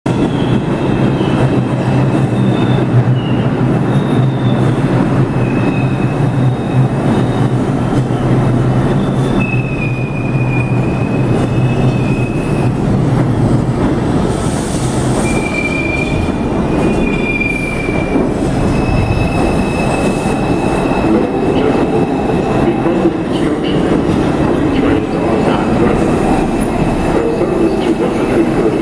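R142 subway train on the 2 line running past through an underground station: a loud steady rumble of wheels on rail with a low hum from the cars, and high thin wheel squeals that come and go several times. The hum fades about halfway through as the train pulls away.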